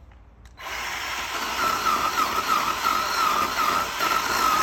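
Craftsman chainsaw engine running at high speed, starting suddenly about half a second in and getting louder a second later, with a wavering whine.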